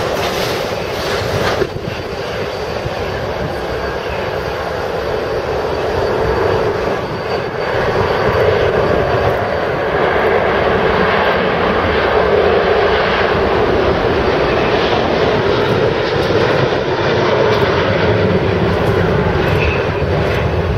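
Boeing 777-300's twin jet engines running at takeoff power through the takeoff roll, lift-off and climb-out. A steady, dense noise that grows louder over the first eight seconds or so and then holds.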